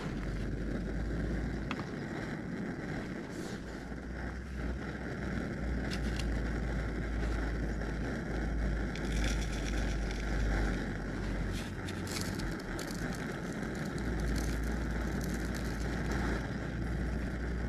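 Wind buffeting the microphone: a steady rush with a low rumble that swells and fades. A few light clicks of a cup and thermos being handled sound through it.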